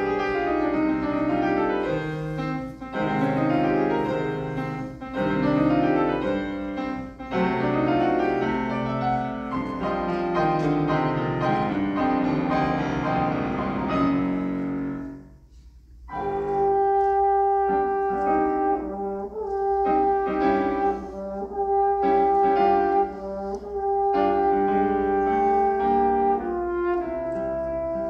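Grand piano plays an introduction alone, its chords dying away about fifteen seconds in; after a brief pause a French horn enters with long held notes over the piano accompaniment.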